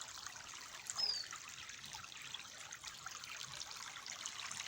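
Small stream trickling and babbling steadily, with a brief high falling chirp about a second in.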